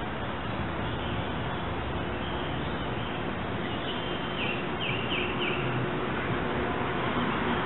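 A bird calls a short run of quick, downward-slurred high notes about halfway through, over a steady outdoor noise.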